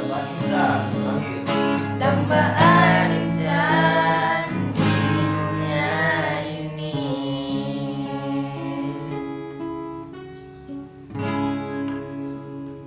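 A person singing over strummed acoustic guitar chords. The voice stops about two thirds of the way through, leaving the guitar chords to ring and fade, with one more strum near the end.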